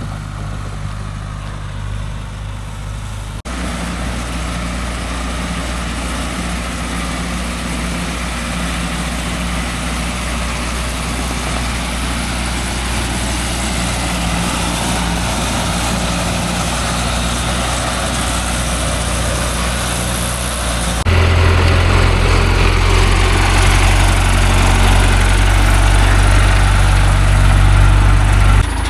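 Heavy engine running steadily at a constant speed. It shifts abruptly about three seconds in, and again about two-thirds of the way through, where it becomes louder and deeper.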